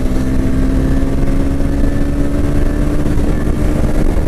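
KTM Duke 250's single-cylinder engine running at a steady cruising speed, its note holding level, with wind rushing over the microphone.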